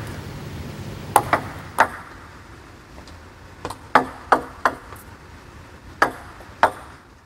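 Table tennis ball clicking off the racket and bouncing on the table during short serves: clusters of sharp, light knocks, about three a little over a second in, a quick run of about six around four seconds in, and two more near the end, with a slight echo of the hall.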